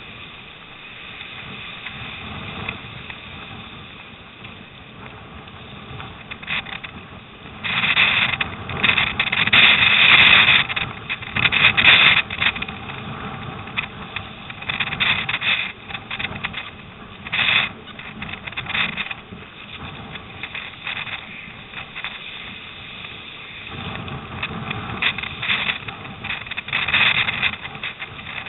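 Water rushing and splashing around a surfski's hull as it runs downwind through storm-driven waves, with wind on the microphone. The splashing surges loudest for a few seconds about a third of the way in, with shorter surges later.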